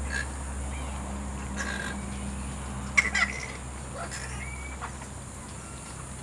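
Flying foxes feeding at a banana basket, giving a few short, sharp squawks, with the loudest burst about three seconds in. A steady low hum runs underneath.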